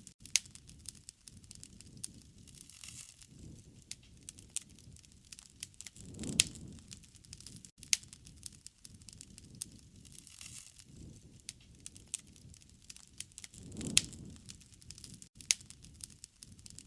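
Wood fire crackling, with frequent sharp pops and snaps. A low rumble of flame swells up twice, about six and fourteen seconds in.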